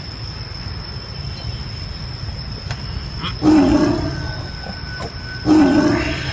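White tiger roaring twice, two loud short roars about two seconds apart, each tailing off.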